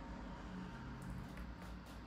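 Faint room tone with a steady low hum.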